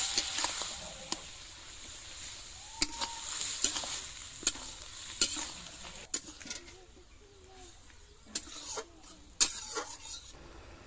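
Spinach and pieces of snakehead fish sizzling in a wok while a metal spatula stirs them, with scrapes and sharp knocks of the spatula against the pan. The sizzle is strongest in the first half, fades after about six seconds and stops shortly before the end.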